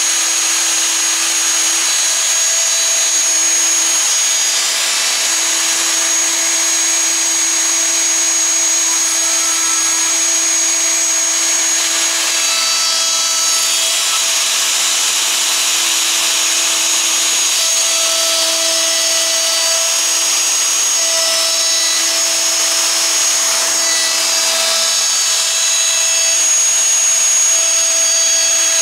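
Festool OF 2000 E/1 plunge router running at speed while cutting a disc from plywood on a circle-cutting jig: a steady high whine from the motor over the hiss of the bit in the wood.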